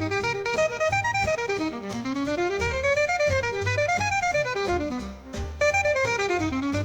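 Upbeat instrumental background music: quick runs of notes rising and falling over a steady low bass pulse, with a short break about five seconds in.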